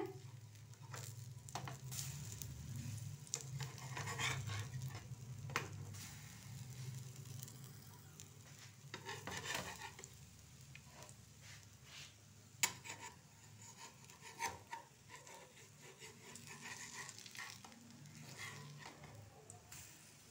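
Besan-batter-coated vegetable tikkis shallow-frying in oil on a tawa, with a faint sizzle. A spatula scrapes and taps against the pan as the tikkis are turned over, with one sharp tap about twelve seconds in.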